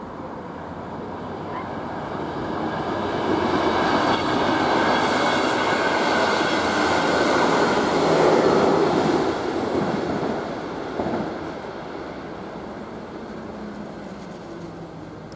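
An electric passenger train passing over a level crossing. Its running noise builds, is loudest about eight seconds in, then fades away.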